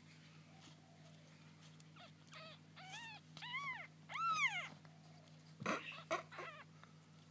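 Newborn kittens mewing: a few short, high cries that rise and fall in pitch, building to two longer, louder ones. A few brief scuffling noises follow.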